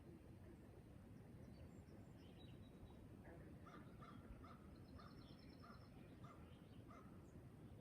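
Faint morning birdsong. Starting about three seconds in, a bird gives a run of about seven short calls, roughly two a second, over scattered higher chirps and one brief high trill.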